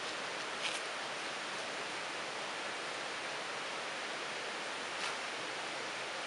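Steady, even background hiss, with two brief faint clicks, one about a second in and one about five seconds in.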